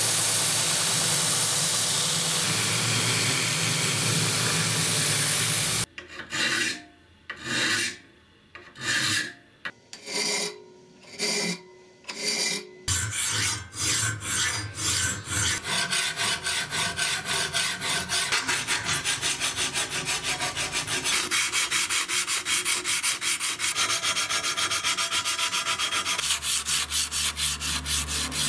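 Belt grinder running with the steel billhook blade held against the belt: a steady hiss over a low motor hum, cutting off about six seconds in. Then a hand file scraping along the blade clamped in a vise, first in slow, separate strokes, then in quick, even strokes several a second. Near the end, sandpaper wrapped around a rod rubs back and forth on the blade.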